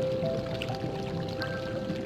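Music with long held notes over a pot of chicken soup boiling, bubbling steadily.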